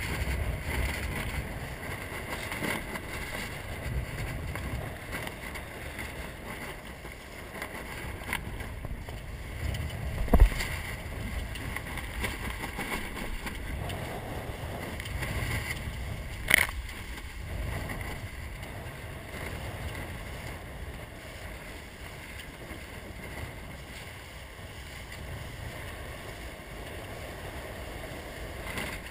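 Wind buffeting the microphone and water rushing and splashing along the hull of a 470 sailing dinghy under way on choppy water. Two sharp knocks cut through, the louder about ten seconds in and another some six seconds later.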